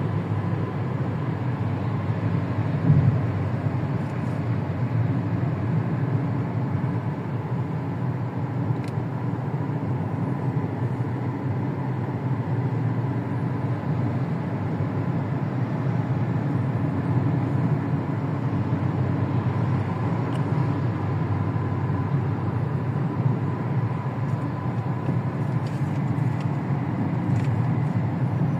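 Car engine idling steadily with a faint steady whine above it; the engine has a misfire. A brief thump about three seconds in.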